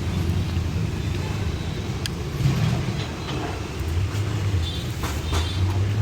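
Steady low rumble of motor-vehicle traffic, with a few faint clicks about two seconds in and again near the end.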